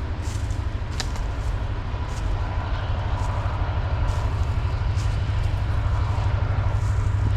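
A train passing: a steady low rumble that grows a little louder toward the end, with a few sharp clicks.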